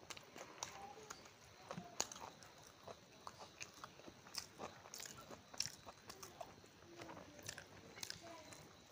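A person chewing a mouthful of rice and curry eaten by hand: faint, irregular wet mouth clicks and smacks several times a second, with some crunching.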